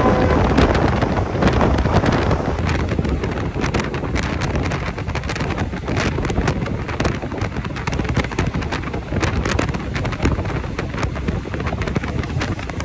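Wind buffeting a microphone held out of a moving passenger train's window, over the low rumble and clatter of the train running along the track.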